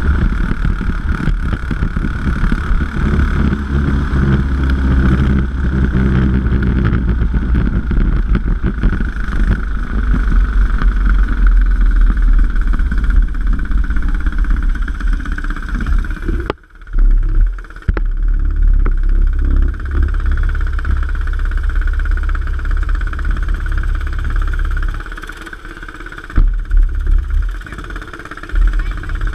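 Racing kart engine running at speed, heard from on board the kart. Its sound drops off about 25 seconds in as the kart slows, with a few sudden loud bumps after that.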